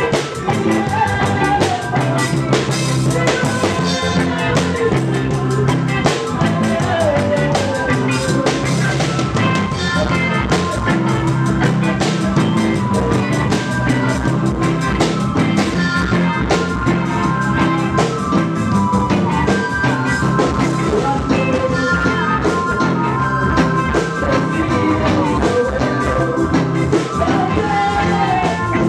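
Live reggae band playing, led by drum kit with rimshots and a steady bass line under the other instruments.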